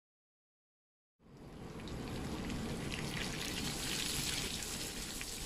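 Soaked dried anchovies (ikan bilis) sizzling in hot oil in a frying pan, starting suddenly about a second in and holding steady with small crackles.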